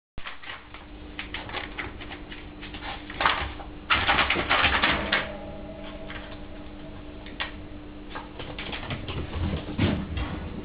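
A toy poodle puppy's claws clicking and pattering rapidly as it runs about a pen, with louder scuffling about three to five seconds in.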